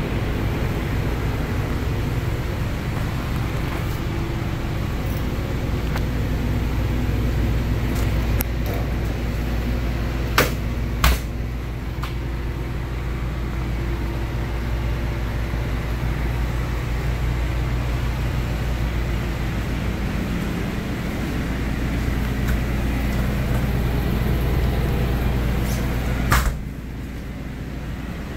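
Steady low mechanical hum of machinery running, with two sharp clicks about ten seconds in and another near the end, after which the hum drops quieter.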